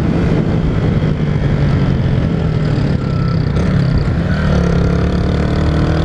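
Honda Titan 150's single-cylinder four-stroke engine running while riding. Its pitch dips slightly past the middle, then rises steadily as the bike picks up speed.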